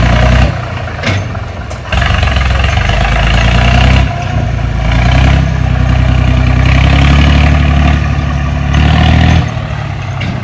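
Tractor's diesel engine working hard as it pulls a trolley along a muddy track, revving up and easing off: it drops back about half a second in, surges again at about two seconds, dips near four seconds, and holds a high revving spell before easing off near the end.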